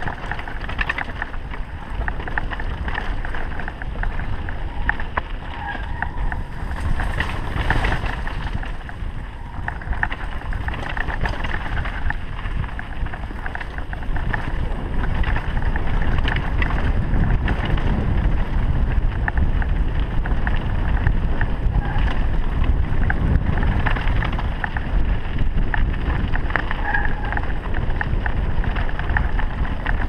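Wind buffeting the microphone of a mountain bike descending a dirt and loose-gravel trail, with the crunch and rattle of tyres and bike over the stones. It gets louder about halfway through.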